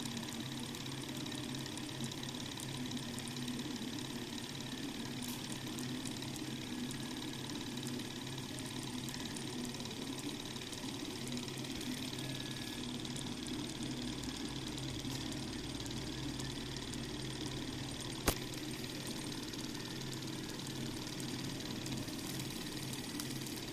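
Small model Stirling engine with glass cylinders running steadily, its pistons and flywheel linkage making a light, even mechanical clatter. One sharp click stands out about eighteen seconds in.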